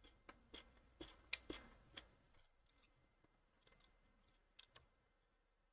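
Faint clicks from a computer mouse: a quick irregular run of them in the first two seconds and a single one near the end, otherwise near silence.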